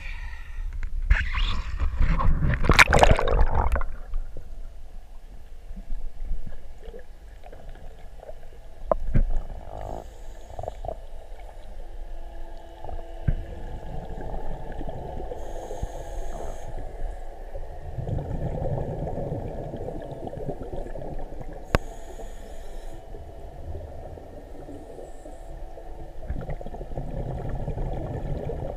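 Water splashing loudly for the first few seconds, then a diver's scuba regulator underwater: a short hiss on each inhalation and a low rumbling gurgle of exhaled bubbles, repeating every few seconds.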